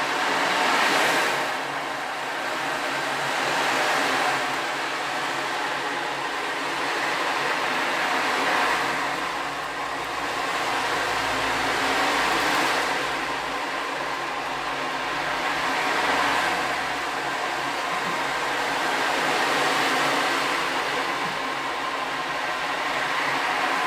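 A 16-inch (42 cm) ocean drum tilted slowly back and forth, the beads inside rolling across the drumhead in a steady rushing wash like surf, swelling about every three to four seconds as it is tipped each way.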